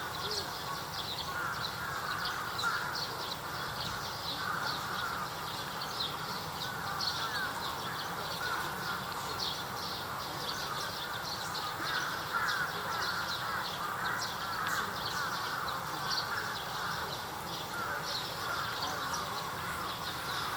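Birds calling without a break, many short calls overlapping, with crows cawing among them.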